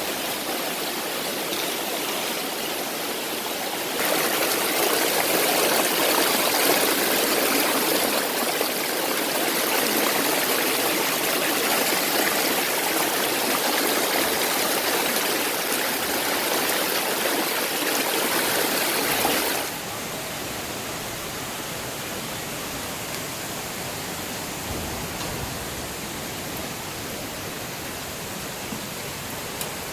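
Waterfall water rushing and splashing in a steady roar of noise. It grows louder about four seconds in and drops back suddenly at about twenty seconds.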